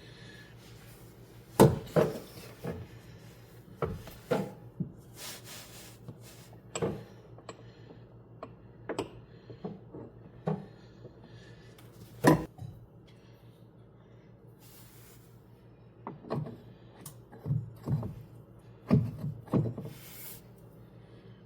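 Parts and tools being handled during hands-on work: irregular knocks, clunks and rubbing, with two sharper knocks about 2 s and 12 s in, over a steady low hum.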